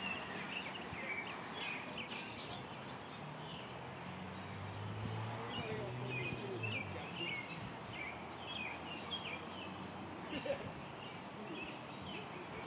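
Small birds chirping again and again over steady outdoor background noise, with a low hum for a few seconds in the middle.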